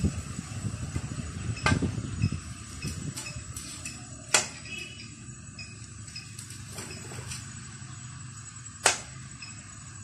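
Greater flameback woodpecker tapping its bill against a mirror: about four sharp, separate knocks a couple of seconds apart.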